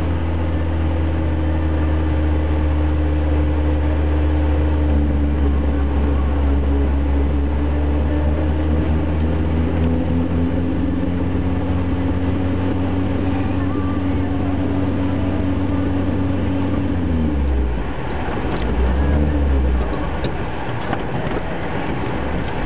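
4x4's engine running at steady revs, heard from inside the cabin while driving. About two-thirds of the way through the revs drop off, then swell briefly and settle lower, with rougher road and tyre noise underneath.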